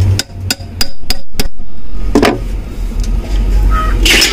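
Sharp metal knocks and taps on a truck starter motor's housing as its body is seated during assembly: about six quick knocks in the first second and a half, a duller knock about two seconds in, then a louder clatter near the end.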